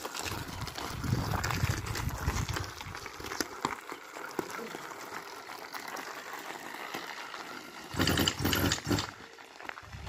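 Bicycle fitted with an 80cc two-stroke engine kit being pedalled to start the engine, with a rumbling, rattling noise over the first few seconds that then quietens.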